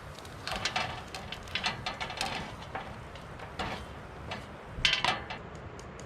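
Irregular clicks, knocks and clatters of objects being handled, the loudest pair just before the end; near the end a faint, fast, even ticking begins.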